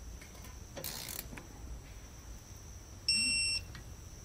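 Electronic torque wrench giving one steady high-pitched beep about half a second long near the end, the signal that the set torque has been reached on a bracket nut. About a second in there is a short rasp from the wrench working the nut.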